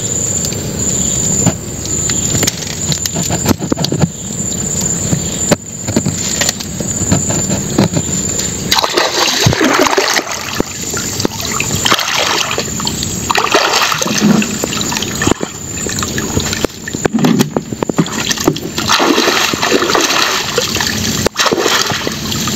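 Legs wading through shallow river water, splashing and sloshing in uneven surges from about nine seconds in. Before that, a steadier rough noise.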